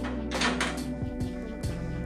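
Background music with steady held tones, with a few short knocks under it.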